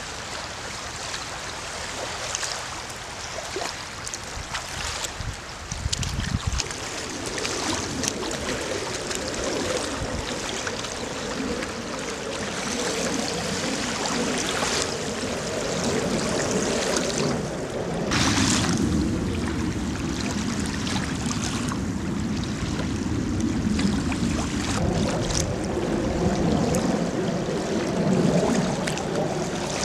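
Shallow lake water lapping and rippling, with wind on the microphone, as a continuous noise.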